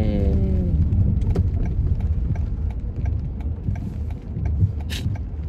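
Car interior noise while driving: a steady low rumble of engine and road. In the first second a drawn-out, falling vocal sound trails off. A brief hiss comes near the end.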